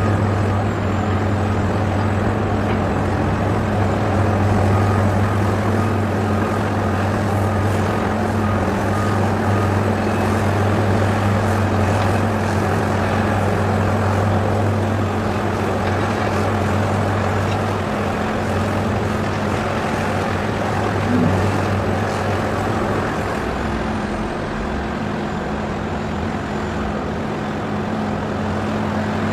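A machine running with a steady low hum at an even level, with no change in pitch or load.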